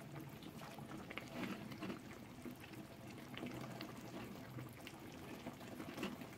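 A spoon scooping hot, still-boiling creamy chicken and vegetable stew from a frying pan and pouring it into a bowl: faint wet slops and pours with a few light ticks.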